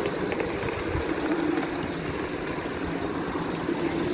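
Narrow-gauge live-steam garden-railway locomotives running on the track, giving a steady hiss of steam over a constant lower running noise.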